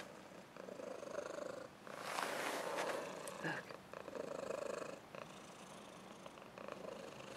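Domestic cat purring close by, the purr swelling and fading with each breath.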